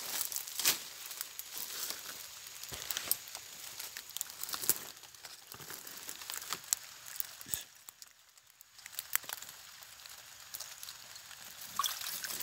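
Dry leaves, fern fronds and twigs rustling and crackling, with scattered sharp snaps, as hands push through the undergrowth to pull out a wire-mesh fish trap. There is a brief lull about eight seconds in.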